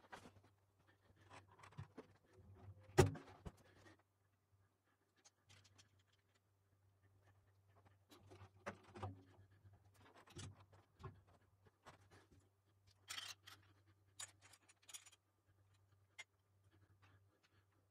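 Drum hardware being handled during kit setup: scattered quiet clicks, knocks and scrapes as the snare, stands and cymbals are set in place, with one sharper knock about three seconds in. A faint low hum runs underneath.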